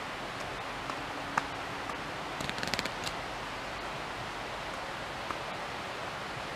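Steady outdoor hiss, like distant running water or wind. A single sharp tick comes about a second and a half in, and a quick cluster of clicks follows about two and a half seconds in.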